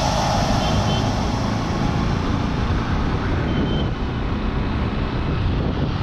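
Steady road vehicle noise, mostly a low rumble.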